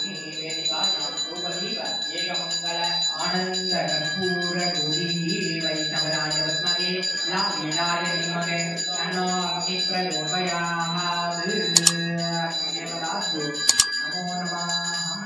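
A small hand bell rung steadily and continuously during the camphor-lamp aarti, over mantras chanted on a near-monotone through a microphone and loudspeaker. Two pairs of sharp clicks come near the end.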